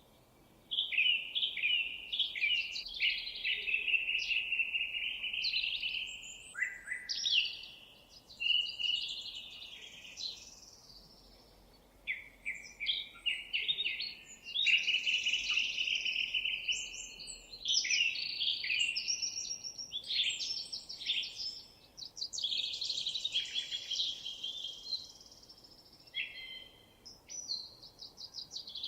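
Songbirds singing: a busy, almost unbroken run of chirps, trills and whistled phrases, with a few short pauses.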